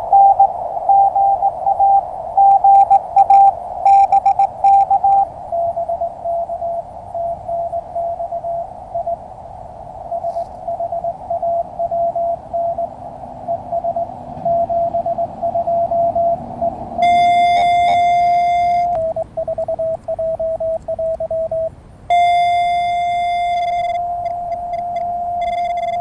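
Morse code (CW) tones from an amateur radio transceiver over receiver hiss: keyed dots and dashes at one pitch, then at a slightly lower pitch. Twice the keyed tone gives way to a long unbroken tone, for about two seconds and then for about four seconds near the end.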